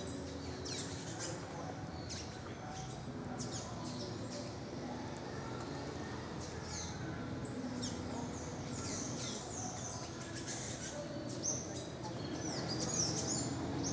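Birds chirping in the tropical forest: many short, high calls that fall in pitch, repeated throughout, over a faint murmur of distant voices.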